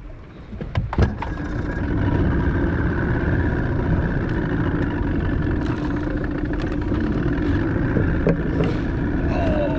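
Boat motor coming up to speed over the first couple of seconds and then running steadily, after a couple of short knocks about a second in.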